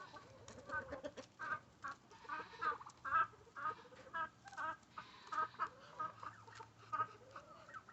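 A group of hens clucking in short, repeated calls, about two or three a second, as they feed on cabbage.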